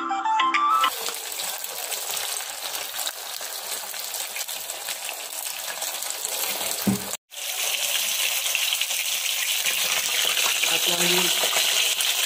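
Masala-coated fish slices shallow-frying in hot oil in a pan: a steady, dense crackling sizzle. A short bit of music ends about a second in, and the sound cuts out for a moment about seven seconds in.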